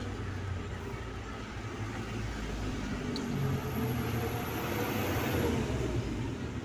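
Steady low engine rumble, with a small click about three seconds in.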